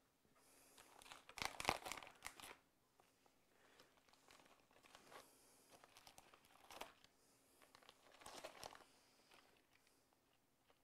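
Faint crinkling and rustling of an Oreo package's plastic wrapper and tray as cookies are pulled out by hand, in a few short bouts.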